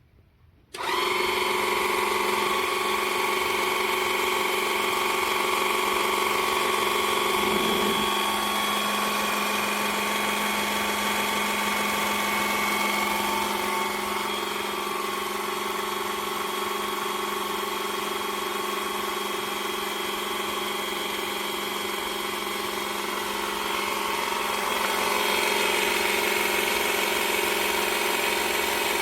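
12 V electric car jack's motor-driven hydraulic pump running steadily in the up direction, a constant motor whine; the jack raises but will not lower. It starts about a second in, after a moment of silence, and the load shifts a little partway through.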